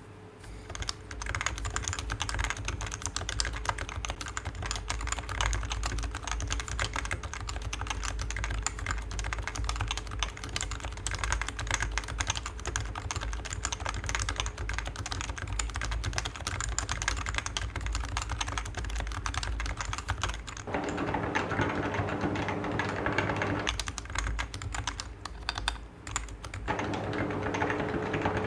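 Fast, continuous typing on a Topre (electrostatic capacitive, rubber-dome) keyboard built into a Geonworks F1-8X V2 case, starting about a second in. The keystrokes have a full sound.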